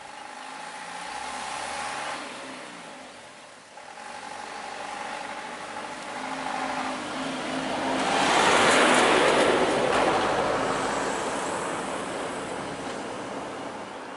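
Road vehicles with engines running at idle, with steady humming tones. A vehicle passes close, swelling to its loudest about eight to ten seconds in and then fading away.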